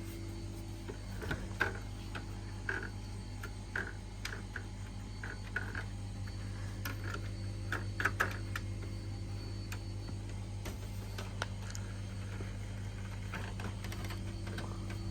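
Panasonic room air conditioner running with a steady electrical hum. Light, irregular clicks and taps sound over it, bunched in the first half and again near the end.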